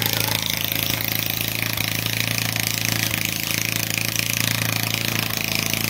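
Small petrol engine of a walk-behind lawn mower running steadily while mowing grass.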